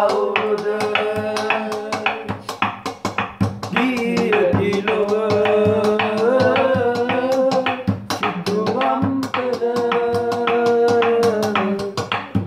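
A man singing a slow song with long, slightly wavering held notes over a steady drum-like beat.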